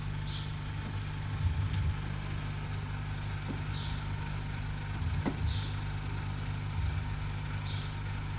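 Steady low hum and hiss of an old television film soundtrack, with a few faint, short scratchy sounds and soft low bumps.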